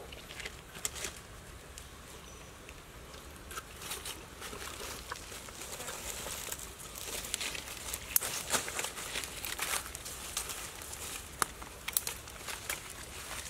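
Rustling and crinkling of fresh green leaves being handled and dropped into a cooking pot over a wood fire, with scattered sharp crackles that grow thicker about halfway through.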